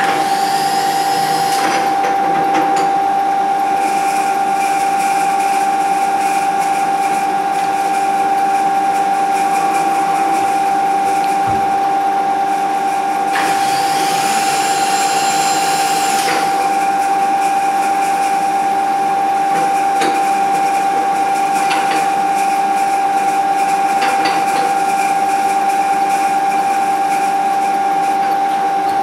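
Milling machine spindle running in low gear with a steady whine, the chamfer tool spinning clear of the work. Twice, a higher motor whine rises, holds for two or three seconds and dies away as the table is traversed.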